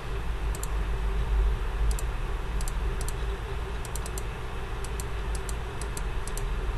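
Computer keyboard keys clicking at an irregular pace, often two or three strokes close together, as a calculator expression is typed in. A steady low hum runs underneath.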